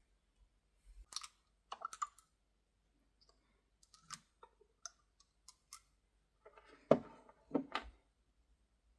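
Light clicks and knocks of small objects being handled, scattered through, with a cluster of louder knocks about seven seconds in.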